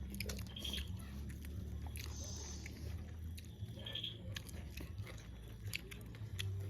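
Close-up eating sounds: chewing and biting food, with scattered small clicks and smacks, over a steady low hum.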